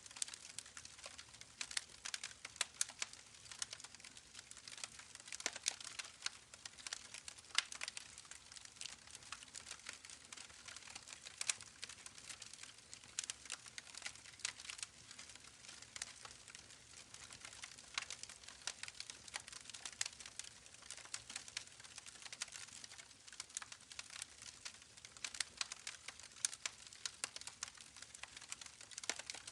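Crackling campfire: a dense, irregular run of small pops and snaps from burning wood, with a few sharper cracks, over a faint steady hiss.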